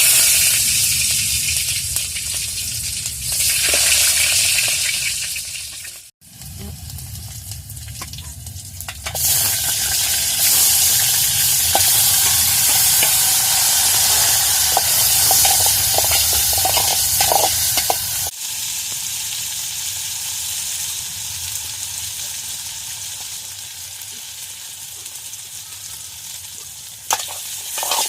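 Food sizzling as it fries in hot oil in a pan, with stirring. The sound breaks off abruptly twice, about 6 and 18 seconds in.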